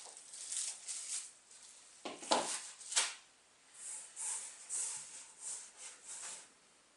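Packaging being handled during an unboxing: a series of short rustles and scrapes, with two sharper knocks a couple of seconds in.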